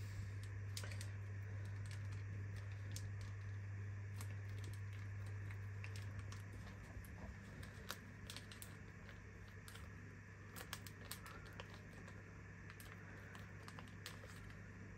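Faint crinkling and light, irregular ticking of a paper seasoning sachet being shaken and pinched over chicken thighs on a metal baking tray. A low steady hum underneath stops about six and a half seconds in.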